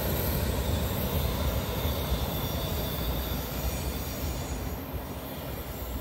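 A diesel freight train's rear locomotive and last cars rolling away: a steady rumble of engine and wheels on rail that slowly fades as the train recedes.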